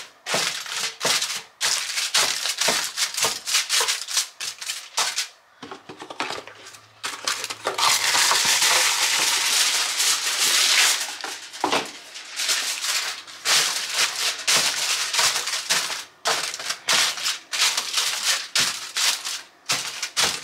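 Aluminium foil crinkling and crackling as it is pressed, folded and smoothed into a metal baking pan. About halfway through there are a few seconds of continuous loud rustling as more foil is pulled from the roll.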